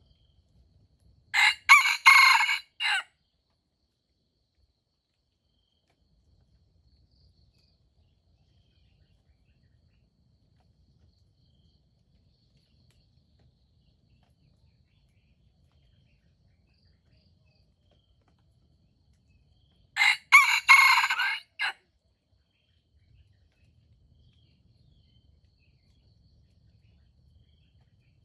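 Rooster crowing twice, each crow about a second and a half long and broken into a few parts: once about a second and a half in, and again about twenty seconds in.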